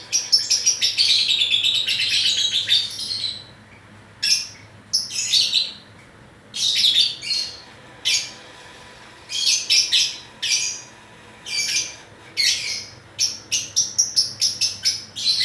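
Pet lovebird chirping and chattering: a long, rapid, high-pitched chatter over the first three seconds or so, then a string of short bursts of chirps a second or two apart.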